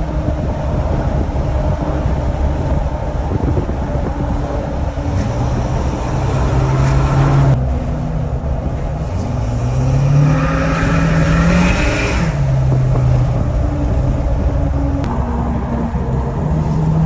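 Tuned Ford 6.7L Power Stroke turbo-diesel V8 with an EGR delete and 5-inch turbo-back exhaust, pulling the truck along under acceleration. Its pitch rises twice and drops sharply each time as the transmission shifts up, then climbs again near the end.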